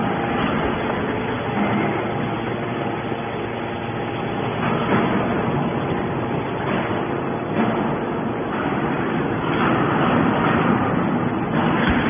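Hydraulic scrap metal baler running: its pump and motor give a steady loud drone with a hiss, swelling a little now and then, as the ram pushes a compressed bale of iron shavings out of the chamber.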